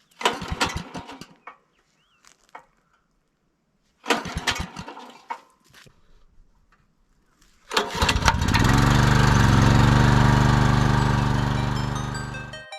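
Small generator engine being started: two short cranking attempts that die away, then on the third it catches at about eight seconds and runs steadily.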